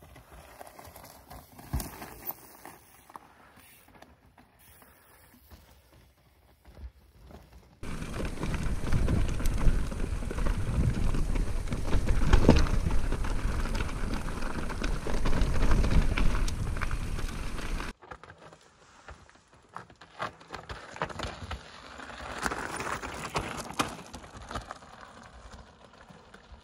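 Mountain bike riding over a rocky gravel trail: tyres crunching over stones, with the bike rattling and clicking. In a loud stretch of about ten seconds in the middle, the sound is close and rushing with wind on the microphone, and it is quieter before and after.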